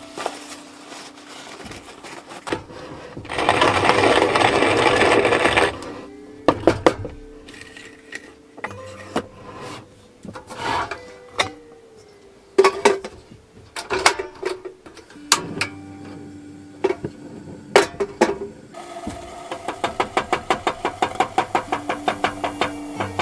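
Wooden hand-cranked coffee mill grinding beans, a string of crunches and clicks. A loud rattling rush lasts a couple of seconds a few seconds in, and a fast, even run of ticks comes near the end.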